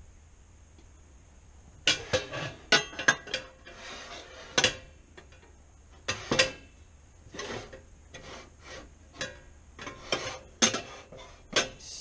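Tramontina tri-ply stainless steel pots, pans and lids being handled and set down against each other: a string of irregular clanks and knocks, some with a short metallic ring, starting about two seconds in.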